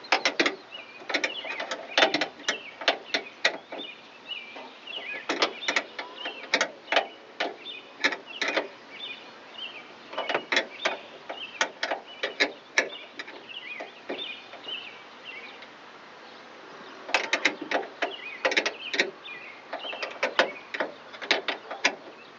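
A wrench working the door-handle bolts inside a van door: irregular bursts of sharp metallic clicks and clinks, pausing for a few seconds past the middle, as the bolts are tightened.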